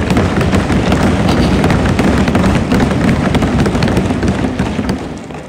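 Assembly members applauding by thumping their desks, a dense clatter of many overlapping blows that tapers off near the end.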